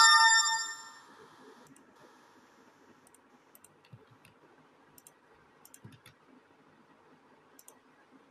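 A phone's message notification chime, several ringing tones together, dying away over the first second. Faint scattered clicks follow.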